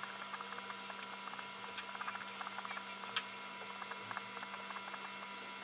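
Fingernails picking and scratching at the surface of a cast resin cylinder, an irregular run of small crackling clicks, with one sharper click about three seconds in, over a steady electrical hum.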